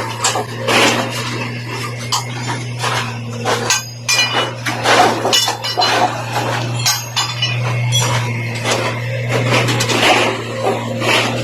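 Construction-site noise: irregular metal clanks and hammer knocks, some ringing briefly, over a steady low machine hum.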